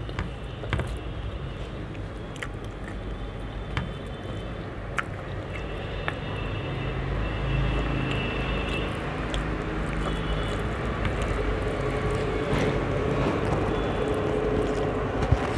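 Hand mixing rice and curry on a steel plate, with small sharp clicks of fingers against the metal every second or two, over a steady low rumble of background noise.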